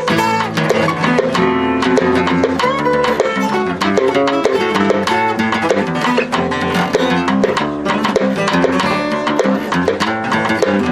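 Acoustic guitar music played live: a strummed and plucked instrumental passage with no singing.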